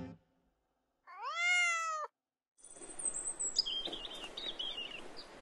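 A cat meows once, about a second in: a single call about a second long that rises in pitch and then holds. From about halfway on there is a steady hiss with high chirping tones over it.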